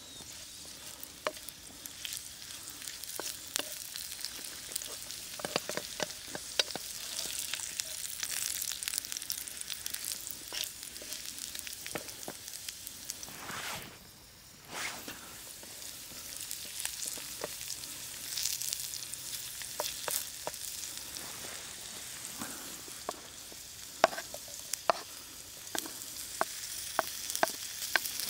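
Sizzling in a hot Stabilotherm Jägerpfanne iron pan, a steady hiss with sharp crackles and pops that come thicker in the last few seconds. The sizzle dips out briefly about halfway.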